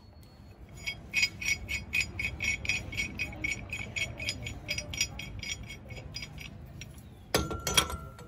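Rapid, regular clicking, about five clicks a second for several seconds over a low rumble, then two sharp knocks near the end.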